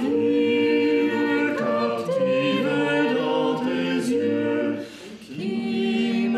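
Classically trained singers singing a cappella in harmony: several voices holding notes together and changing chords, with a short break about five seconds in before the singing picks up again.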